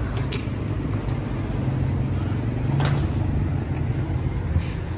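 Steady low mechanical hum, like an idling engine or a running machine, with a few light clicks over it.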